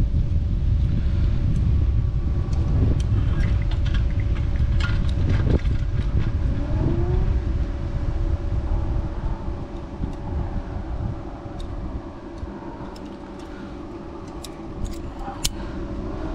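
A low rumble, loudest for the first ten seconds or so and then fading, with scattered light clicks and snips of hand tools as a ground wire is cut and its end stripped.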